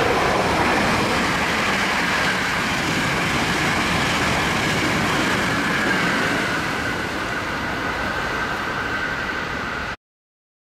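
Hankyu electric limited-express train passing through a station at speed without stopping: a steady loud rush of wheels on rail with a faint high whine that slides slightly lower as it goes by. The sound cuts off suddenly near the end.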